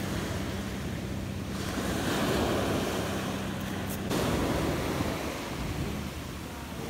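Surf breaking and washing up a sand-and-pebble beach, with wind buffeting the microphone.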